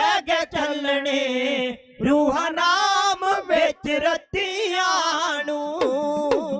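Male dhadi singers chanting a Punjabi ballad in long, wavering held lines, with sharp drum taps between the phrases.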